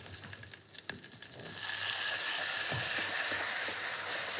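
Chicken stock poured into a small saucepan of potato balls frying in hot butter: a light crackle at first, then about a second and a half in a louder, steady sizzle and hiss as the stock hits the hot fat.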